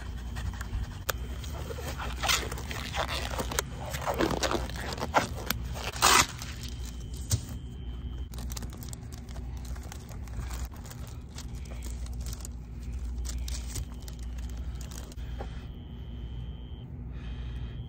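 Scraping and crackling handling noises of hands at food-prep work, densest from about two to six seconds in with a sharp crackle near the end of that stretch, then scattered light clicks and knocks. A steady low hum runs underneath.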